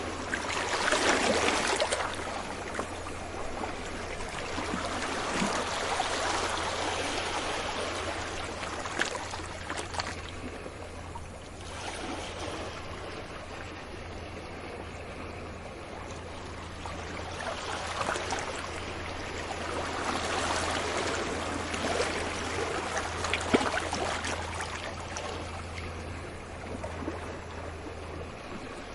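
Ocean waves washing onto a shore, swelling and drawing back in slow surges several seconds apart. A steady low hum runs underneath and cuts off near the end.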